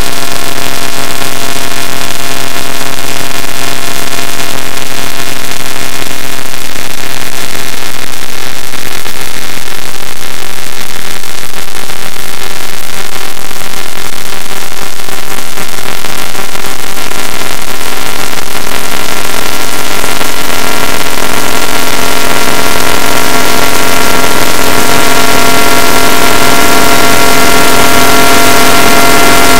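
Very loud, heavily distorted electronic drone: several steady held tones under a harsh hiss that fills the whole range, with no beat or rhythm. The hiss and the higher tones grow stronger over the second half.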